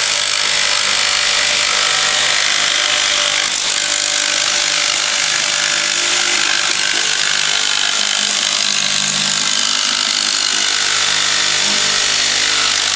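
A power tool runs steadily, cutting through a faux brick wall panel.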